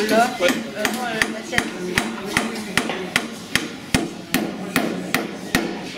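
Hammer blows at a steady pace, about two and a half sharp strikes a second, some fourteen in all, the blows a little louder in the middle.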